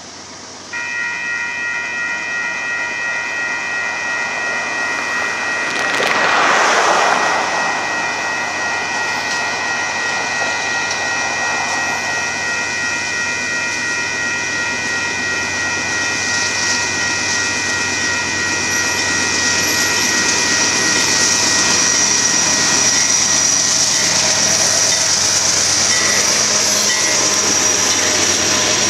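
Railroad grade-crossing warning bell starts suddenly about a second in and rings steadily for over twenty seconds, then stops, as a Union Pacific freight train approaches the crossing. A brief rush of noise comes about six seconds in, and the train's running noise grows louder near the end, with a high steady tone, as the locomotives reach the crossing.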